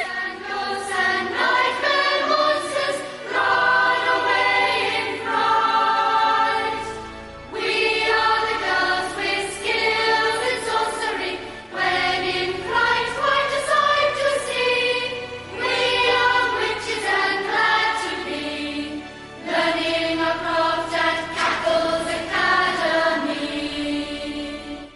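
Closing theme music with a choir of voices singing in phrases, ending at the very end.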